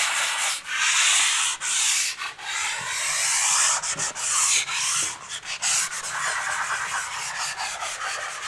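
Hand sanding of dried smoothing filler (skim coat) on a plastered wall with a P150 foam-backed abrasive pad: scratchy back-and-forth strokes with a few brief breaks.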